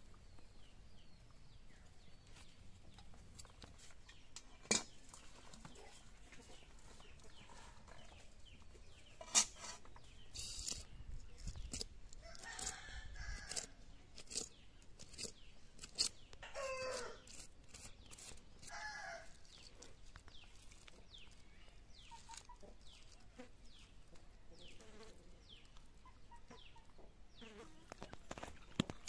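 Domestic chickens clucking and a rooster crowing, with a run of calls about halfway through, falling in pitch. Two sharp knocks come earlier.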